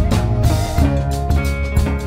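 Background music with a steady drum beat under held instrument notes.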